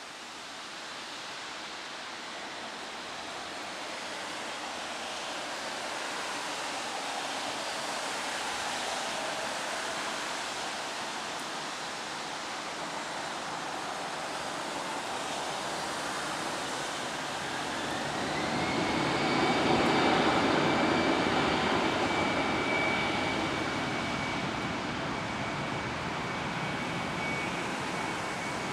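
Jet engines of an Airbus A319 on its takeoff run: a broad rushing noise builds steadily, and about two-thirds of the way in a whine rises in pitch and then holds high and steady as the sound peaks.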